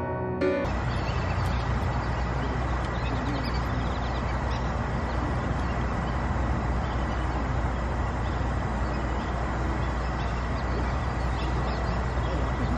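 Steady outdoor city ambience: a low traffic rumble with ducks quacking now and then. Piano music cuts off about half a second in.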